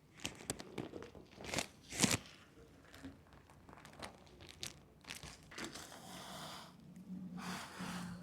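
Rustling and crinkling handling noise with a string of light, sharp clicks and knocks in the first few seconds, then two longer hissing stretches near the end.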